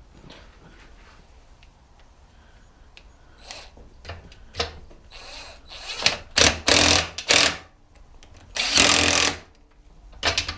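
A power tool run in short bursts: three quick bursts about six seconds in, then a longer one of about a second near the end, with a few light knocks before.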